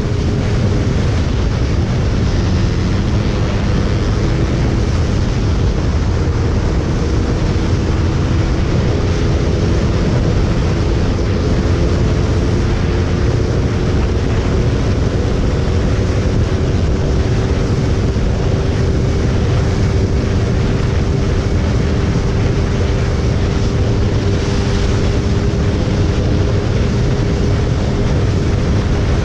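Suzuki motorcycle engine pulling hard at high speed in sixth gear, its pitch climbing slowly, under heavy wind rush.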